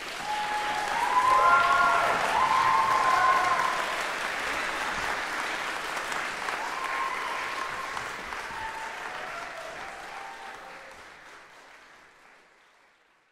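Audience applauding, loudest in the first few seconds and slowly dying away toward the end.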